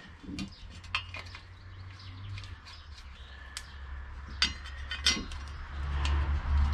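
Light metallic clinks and ticks from steel bolts, nuts and a steel mounting plate being handled and fitted onto a car's suspension strut tower, over a low steady hum that grows louder near the end.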